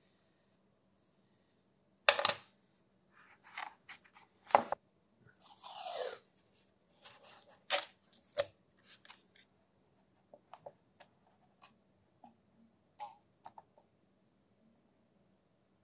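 Handling sounds at a workbench: sharp clicks and taps of tools, wire and a plastic part being handled, the loudest about two seconds in. Around the middle comes a short scratchy rip of masking tape being pulled off its roll. The last few seconds hold only faint scattered ticks.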